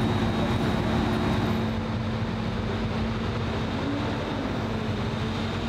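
Heavy diesel engine of a large mobile crane running steadily, with a low hum that drops out about two seconds in.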